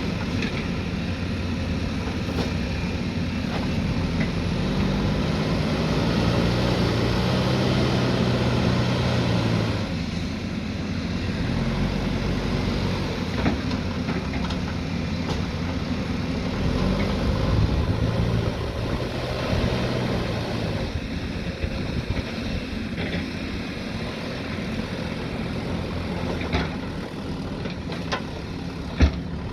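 Diesel engine of a heavy earthmoving machine running and working, its note rising and falling as the load comes on and off, with a few knocks and one sharp knock near the end.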